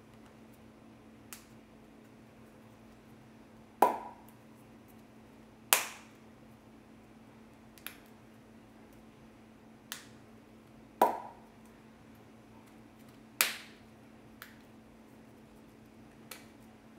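Plastic pop-top vial being handled: a series of about nine sharp plastic clicks and snaps at uneven intervals, four of them much louder with a short ring-off, over a faint steady hum.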